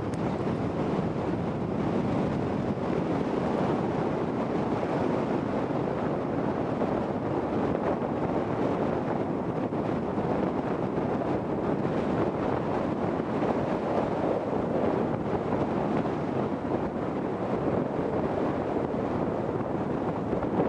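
Steady wind noise rushing over the microphone.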